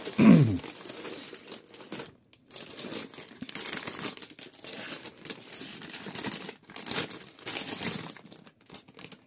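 Clear plastic parts bags crinkling and rustling irregularly as they are handled and sorted, with a brief pause about two seconds in. Right at the start there is a short falling vocal sound.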